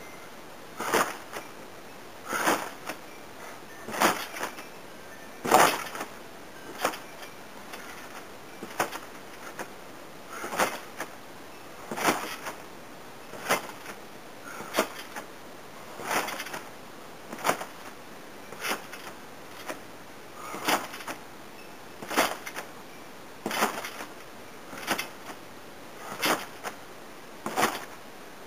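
A person jumping repeatedly on a backyard trampoline: the mat and springs clank and creak with each landing, in a steady rhythm about every one and a half seconds.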